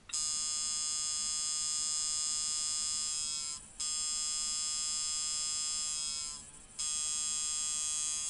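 Ciferri Fastback coil tattoo machine buzzing on 4.5 volts, set up as a liner with a soft hit. It runs in three stretches, stopping briefly about three and a half and six and a half seconds in, its pitch sagging slightly as it winds down each time.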